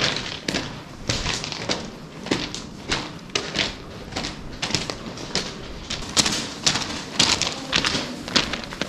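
Two people's footsteps on loose gravel ballast inside a long disused railway tunnel, an uneven run of steps about two a second.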